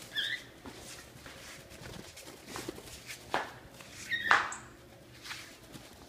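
Footsteps and scuffing on a tiled floor, with a cockatiel giving short chirps just after the start and again about four seconds in, the second with the loudest scuff.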